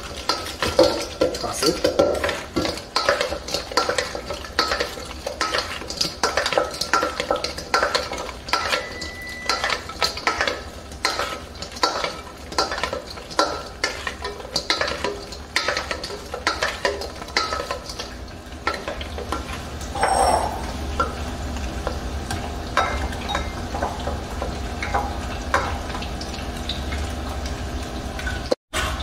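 Wooden spoon stirring and tossing sauce-coated fried cauliflower pieces in a stainless steel mixing bowl: irregular knocks and scrapes against the metal, thinning out after about twenty seconds. A steady low hum runs beneath.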